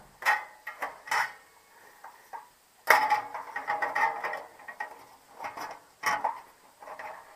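Sheet-metal clanks and rattles from a patio heater's reflector hood and mesh emitter screen being handled and lined up: a few separate knocks and a longer spell of ringing clatter.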